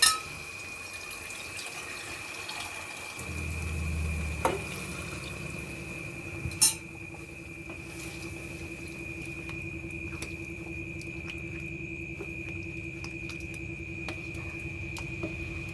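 Water poured into a pan of simmering curry, with sharp clinks of metal cookware at the start and again about six and a half seconds in. A steady high-pitched whine runs under it, and a low hum starts about three seconds in.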